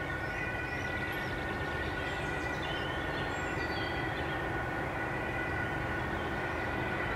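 Steady street-traffic noise, a low rumble of passing cars and vans, with a constant high-pitched tone running over it and a few faint high chirps in the first few seconds.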